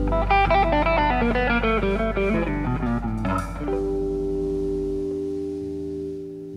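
Electric blues band's final phrase: a fast run of single notes on electric guitar over a held bass note, a cymbal crash about three seconds in, then a last chord left ringing until it is cut off at the very end.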